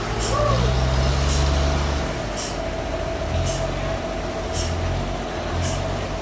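Heavy diesel machinery running, its low engine note stepping up and down as the load changes, with a steady whine and short hissing ticks about once a second.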